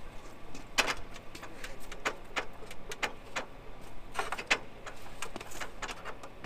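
Fire-service extension ladder being handled and rotated: irregular metal knocks, clanks and rattles, about one or two a second.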